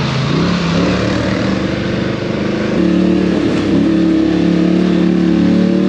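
ATV engine running steadily under way, its pitch climbing briefly at the start and then holding, over a steady hiss.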